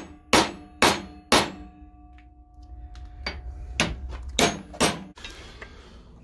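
A hammer striking a cut metal pipe clamped in a bench vise: three sharp blows in quick succession, a pause while the metal rings, then three more. The pipe is being hammered narrower and round to fit a hole.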